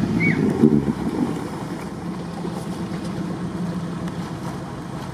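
Off-road 4x4's engine running steadily as the vehicle drives through a mud crossing, getting fainter over the few seconds.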